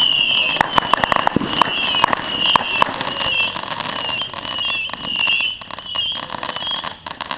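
Consumer fireworks going off: a rapid run of sharp crackling pops over a wavering high-pitched whistle, thinning out and dying down near the end.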